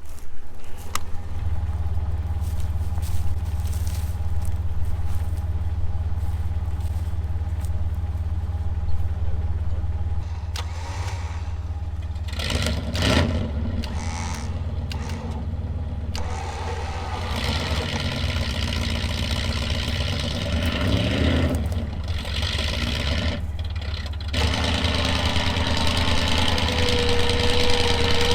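Electric winch on a Jeep Wrangler TJ reeling in line under load, pulling a stuck pickup truck out of soft mud, over a steady low engine rumble. Pitched lines slide up and down in the middle, and a steady whine holds near the end.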